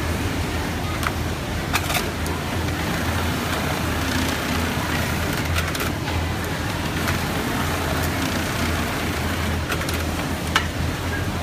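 Steady low hum and din of a shoe-factory sewing floor with automatic pattern sewing machines running, broken by a few sharp clicks, the loudest near the end.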